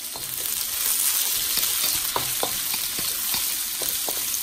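Diced onion and green bell pepper sizzling in hot oil in a wok while a wooden spatula stirs them, with scattered light scrapes and taps of the spatula against the pan. The sizzle grows louder about a second in.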